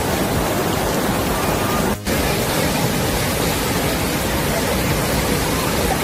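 Rushing white water of mountain-stream rapids pouring between granite boulders. A loud, steady rush of water, broken for a moment about two seconds in.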